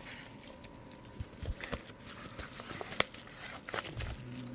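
A mail package being opened by hand: crinkling and tearing of the wrapping, with scattered clicks and one sharp snap about three seconds in.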